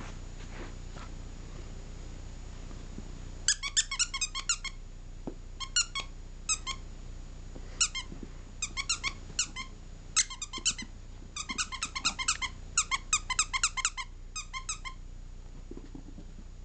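Squeaky toy squeaked in quick runs of short, high squeaks as a chihuahua puppy plays with it. The squeaks start about three and a half seconds in and stop a couple of seconds before the end.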